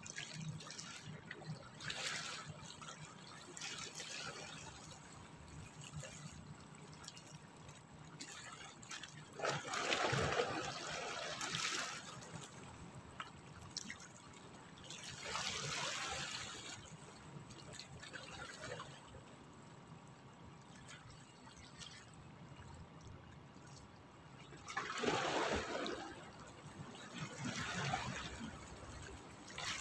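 Small sea waves lapping and washing against shoreline rocks, swelling and falling back every few seconds, loudest about ten and twenty-five seconds in.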